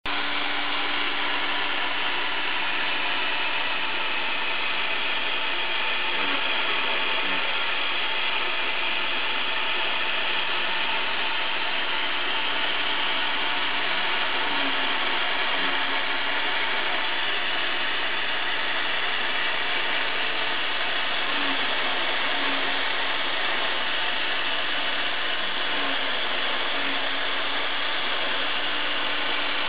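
A homemade CNC router running: the router spindle motor spins at speed while the bit works into a white sheet, a steady, dense machining noise with a low hum under it. Short low tones come and go every few seconds as the machine's axes move.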